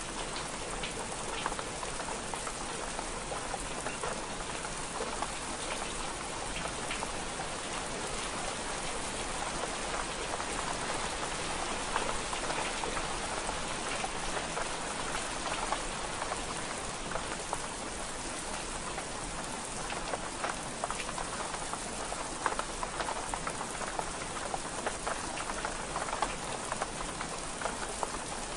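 Steady rain on window glass: an even wash of rain with many small, sharp drop ticks scattered throughout.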